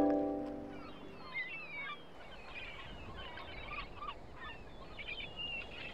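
A flock of birds chirping and calling in many short, quick calls over a steady wash of noise. The last notes of a marimba-like music cue fade out in the first second.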